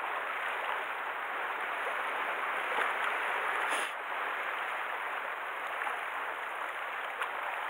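Steady wash of sea surf on a rocky shore, an even hiss of moving water, with one brief faint tap about four seconds in.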